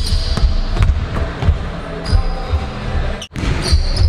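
A basketball being dribbled on a hardwood gym floor, with short sneaker squeaks, over background music with a steady bass beat. The sound drops out sharply for a moment about three seconds in.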